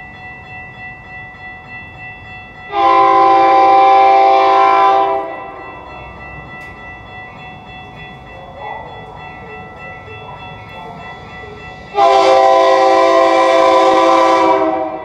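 An approaching Metra commuter train sounds its multi-tone air horn in two long blasts, the second about nine seconds after the first, over the low rumble of the train on the tracks.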